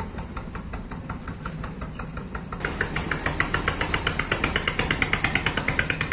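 An engine running steadily with a rapid, even chugging rhythm, which gets louder about two and a half seconds in.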